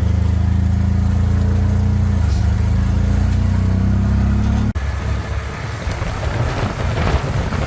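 Motorcycle engine of a motor tricycle running steadily at constant speed. About 4.7 s in it changes abruptly to a rougher, noisier run with more rushing sound.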